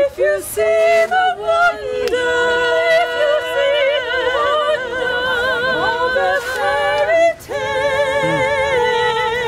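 A woman singing unaccompanied, holding long notes with a wide vibrato, with a short break about seven seconds in.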